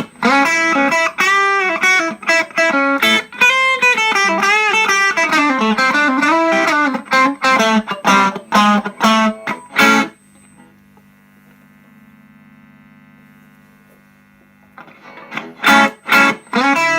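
Electric guitar played through an Ibanez Tube Screamer Mini overdrive pedal: a driven riff with string bends and short stabbed chords. About ten seconds in the playing stops, leaving only the amp's steady hum, and then starts again near the end.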